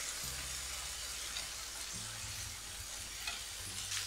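Thinly sliced pancetta sizzling steadily as it fries in a hot pan.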